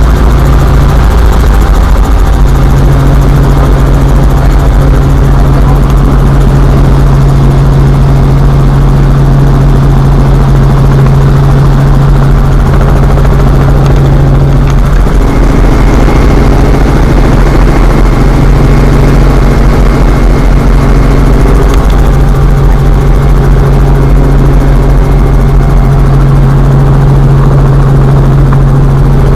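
Helicopter running in flight: a loud, steady rotor and engine drone whose low hum wavers for a while about halfway through, then steadies again.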